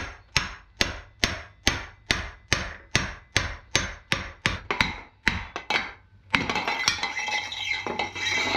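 Steady metal-on-metal strikes, about two and a half a second, as a bearing is driven into its housing with a long steel rod. About six seconds in the strikes stop and give way to a continuous grinding rub.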